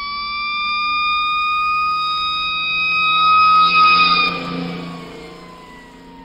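Fire-engine siren wailing: one slow rising tone that peaks about four seconds in, then falls in pitch and fades away, over a steady lower hum.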